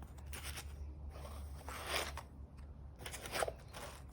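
Metal glass-gate hinges being handled and turned over: a few short scraping and rustling noises over a low steady hum.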